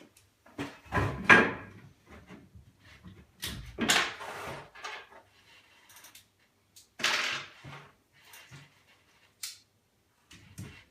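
A few short knocks and rustles of tools and hardware being picked up, handled and set down. The three main bursts come about a second, four seconds and seven seconds in, the first the loudest, with small clicks between.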